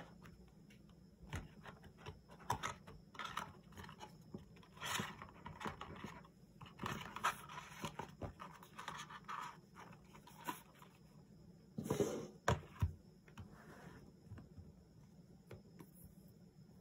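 Cardboard and paper phone packaging being handled: card flaps and inserts rustling, scraping and sliding against each other in short irregular bursts, with a couple of louder bumps about twelve seconds in.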